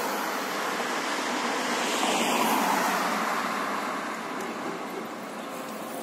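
Traffic noise on a city street: a steady hiss of passing vehicles that swells about two and a half seconds in and then eases off.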